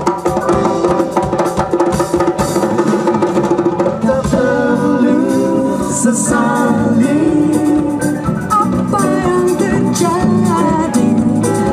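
Live band playing upbeat, jazzy dance music on hand drums and electric guitar, with voices joining in singing about four seconds in.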